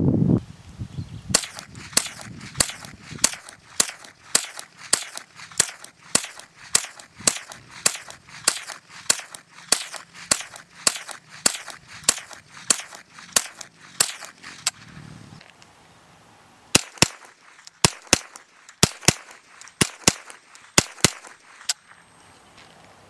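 Ruger 10/22 semi-automatic .22 LR rifle fired rapidly, sharp cracks at about two to three shots a second in a long steady string. After a lull of about two seconds comes a second, shorter string of shots spaced less evenly.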